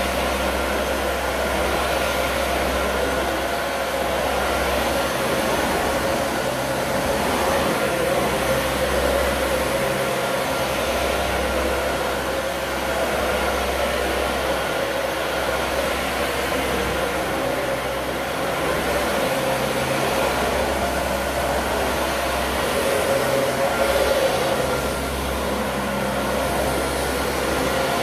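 Dyson Ball Multi Floor 2 upright vacuum cleaner running steadily while vacuuming a hardwood floor: a constant motor whine with a low rumble that comes and goes every few seconds.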